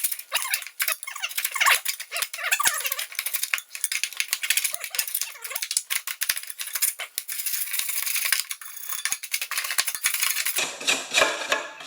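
Metal scraper scraping packed grass clippings off the underside of a lawn mower deck: a dense run of quick scratching and clinking strokes.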